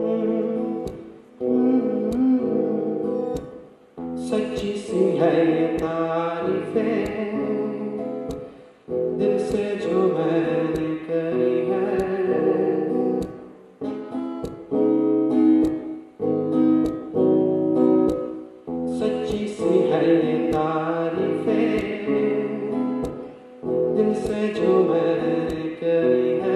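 A man singing to his own strummed acoustic guitar, in sung phrases of a few seconds each with short breaks between them.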